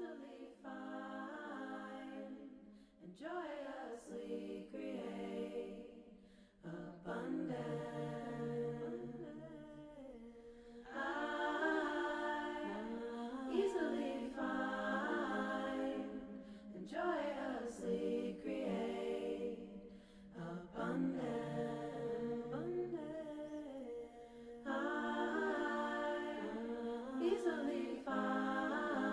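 Background music of a cappella voices singing in phrases of a few seconds each, with brief pauses between phrases.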